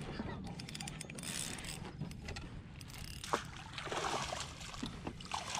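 A fish splashing and thrashing at the surface beside a kayak, loudest about three to four seconds in, with a few sharp clicks and knocks from the fishing gear.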